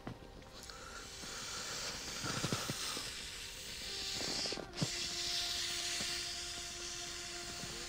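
Air hissing steadily out of the open valve of an inflatable vinyl globe balloon as it slowly deflates, with a brief break in the hiss about halfway through and a few short squeaks from the vinyl being squeezed.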